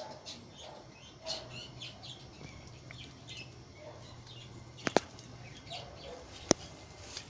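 Small birds chirping on and off, with two sharp clicks about five seconds in and a second and a half later.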